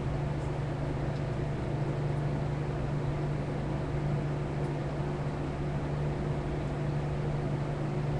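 Steady low mechanical hum with an even hiss.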